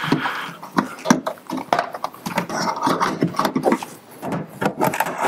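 Irregular clicks, taps and rustling from hands pushing in and tugging on the plastic wiring connectors of a car's charge port controller.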